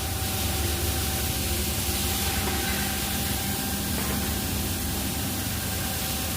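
Steady machine hum with an even hiss over it and a faint constant tone, unchanging throughout.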